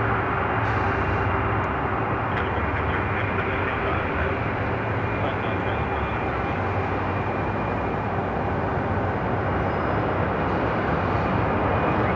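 Boeing 747's four jet engines running at low taxi power: a steady, even rumble with a faint constant high whine.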